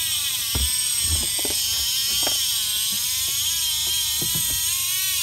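Fishing reel's drag whining as a hooked fish runs and pulls line off the spool, the pitch wavering up and down, with a few knocks mixed in. The drag is set light enough that the line risks running out.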